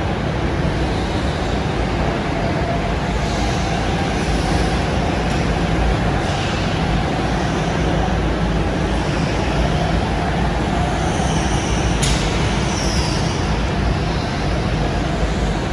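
Go-karts running on an indoor track: a steady rumble with faint motor whines rising and falling as they pass, and one sharp tick about three-quarters of the way through.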